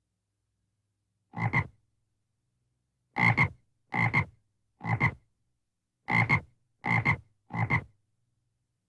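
A frog croaking seven short times. There is a single croak, then a pause, then six more at roughly one-second spacing.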